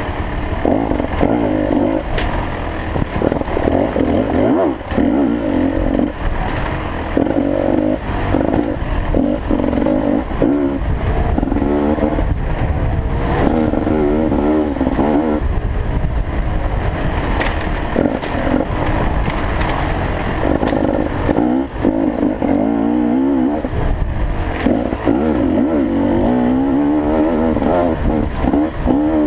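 2013 Beta 250RR two-stroke dirt bike engine being ridden hard along a trail, its pitch rising and falling constantly as the rider works the throttle and gears.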